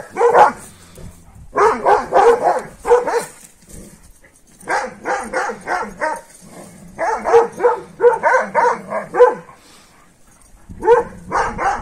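Kangal shepherd dogs alarm-barking at something they have spotted. The barks come in rapid bursts of several barks each, with pauses of about a second between bursts.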